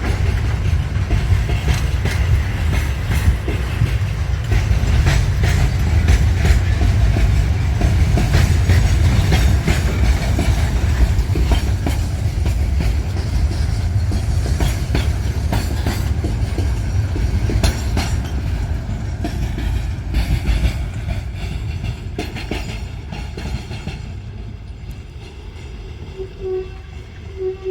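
Pair of GE U10B diesel-electric locomotives and their train working up a grade, a loud low rumble with the clicking of wheels over the rails, fading away over the last several seconds. A few short horn-like toots sound near the end.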